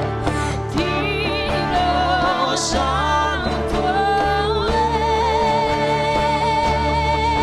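Live worship band music: electric guitars and band play while a singer sings with vibrato, holding one long note through the second half.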